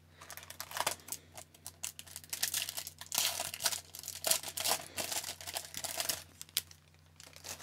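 Foil hockey-card pack wrapper crinkling as it is handled and torn open, a run of irregular crackling rustles that dies away near the end.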